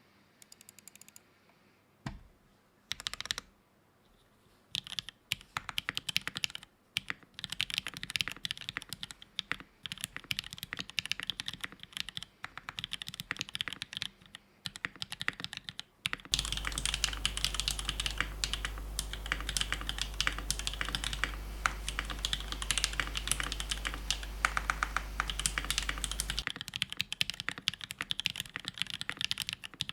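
Typing on an Iron165 R2 gasket-mount keyboard with an aluminium plate, lubed Kailh MX Cream linear switches and GMK keycaps. A few scattered keystrokes come first, then steady fast typing from about five seconds in, with a low hum underneath through the middle stretch.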